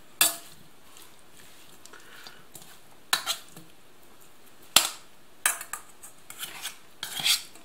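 Metal spoon clinking and scraping against a stainless steel bowl while tossing a dressed salad. The strokes are irregular and short, and a sharp clink a little past the middle is the loudest.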